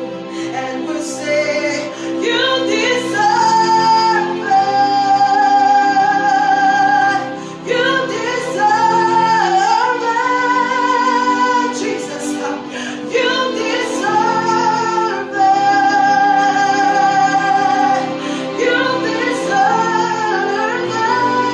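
A woman's voice singing a worship song in long, held notes with vibrato, phrase after phrase, over steady sustained accompaniment chords.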